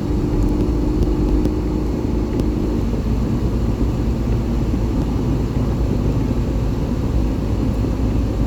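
A car driving along a road, with a steady low rumble of engine and tyres. A faint steady hum sits over it for the first three seconds or so.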